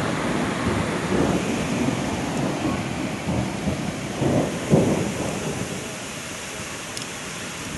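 Heavy rain pouring down, with a low rumble underneath that swells about four to five seconds in and then dies away, leaving the steady hiss of rain.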